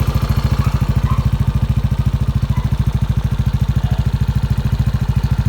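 Motorcycle with an aftermarket WF power pipe exhaust idling steadily, the exhaust giving an even, rapid pulsing beat.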